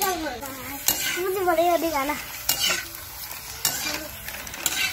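Puris deep-frying in hot oil in a pan over a wood fire, sizzling throughout, with a metal ladle clicking against the pan about four times as they are stirred and lifted out. A wavering tone sounds over the first two seconds.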